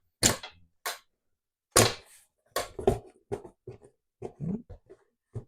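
Manual foot-operated treadle stapler closing staples into the bottom of a cardboard carton. There are sharp clacks about a third of a second in and again near two seconds, with a run of lighter, irregular knocks and taps as the carton is shifted on the machine.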